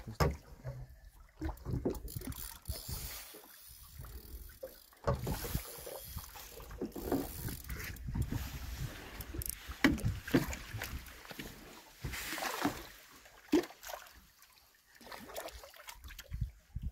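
Irregular knocks, clicks and handling noise on a small fishing boat, with water sloshing, while a hooked fish is played close to the surface.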